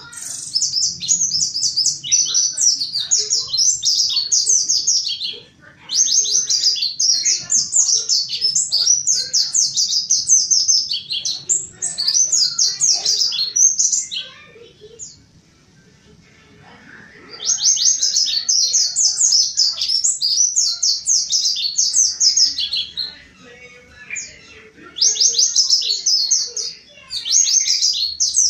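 Mountain white-eye singing in fast, high-pitched warbling phrases, four long bouts with short pauses between them.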